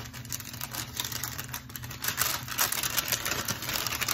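Packaging being handled and unwrapped: quick, irregular crinkling and crackling, loudest about two seconds in, as a small advent gift is taken out of its box.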